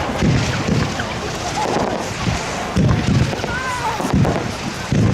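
Aerial fireworks bursting: several low booms a second or so apart, over the chatter of a crowd of spectators.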